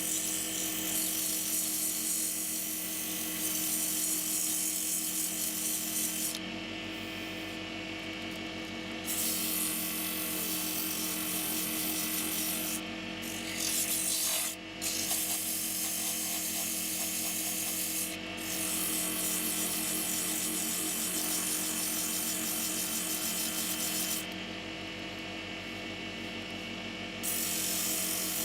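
Wood lathe running with a steady motor hum while sandpaper rubs against the spinning Leylandii trinket box, giving a rasping hiss. The hiss drops away for a few seconds twice, about a quarter of the way in and again near the end, with a few brief breaks in between.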